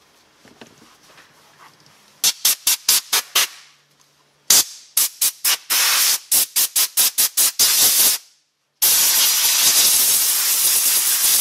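Quick runs of short, sharp spray hisses, about four or five a second, followed by a steady hiss of spray for the last few seconds that cuts off suddenly.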